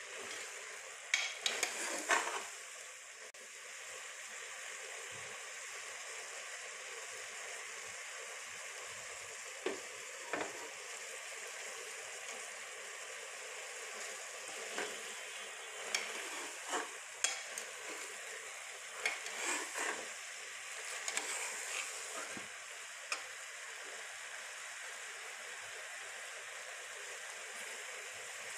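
Chickpeas and spices frying in hot oil in a pan, with a steady sizzle and the irregular scrape and clatter of a spoon stirring them, busiest near the start and in the middle.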